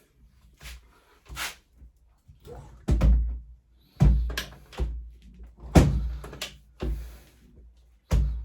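Knocks and metal clunks from hands working on a four-stroke pit bike engine's valve gear, checking the valves for play. Several heavier thumps about three, four, six and eight seconds in.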